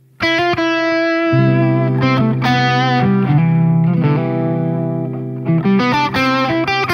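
PRS NF3 electric guitar with a lightly driven lead tone playing a melodic line in the C Ionian mode over a sustained C major 7 chord from a recorded loop. The line comes in sharply just after the start. Its perfect fourth is the note that clashes with the chord's major third.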